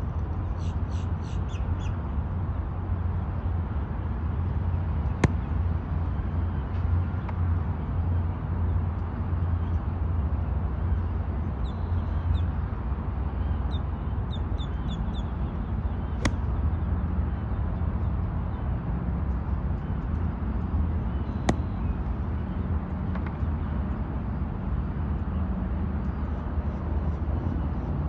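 Golf wedge striking balls off range turf: three sharp clicks, about 5, 16 and 21 seconds in, over a steady low outdoor rumble. A bird calls in quick runs of short notes near the start and again about 12 to 15 seconds in.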